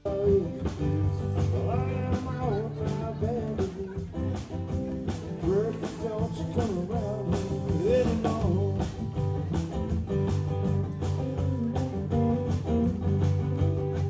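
Live rock band playing: drum kit, acoustic and electric guitars, with a voice singing over them. The music cuts in suddenly at the start and the beat keeps going throughout.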